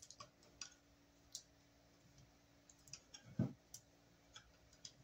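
Faint scattered clicks and taps of wires and a small metal breaker box being handled, with one louder dull knock about three and a half seconds in.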